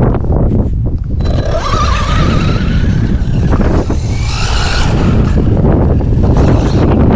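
Traxxas Maxx V2 RC monster truck driving: its brushless motor whine rises in pitch as it accelerates about a second and a half in, with tyre and ground noise, over heavy wind noise on the microphone. The sound drops off suddenly at the end.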